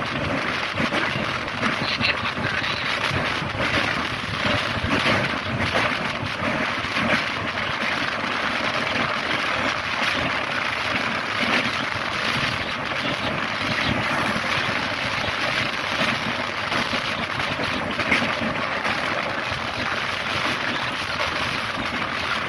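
Express train running at speed across a steel truss bridge: a steady rush of wheel and track noise with light rattles, mixed with wind on the microphone.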